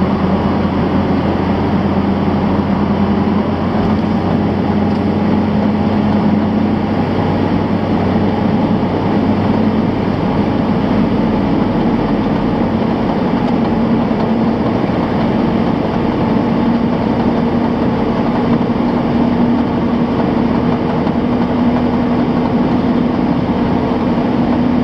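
A 1991 Chevrolet on the move: steady engine and road noise, with a drone that slowly rises in pitch as speed builds.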